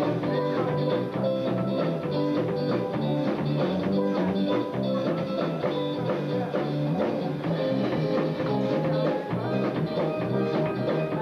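A live band playing dance music, with electric guitars over a drum kit keeping a steady beat.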